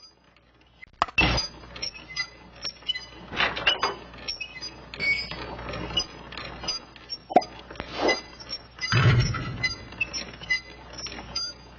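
An irregular run of clinks and knocks, with brief high pings scattered through it.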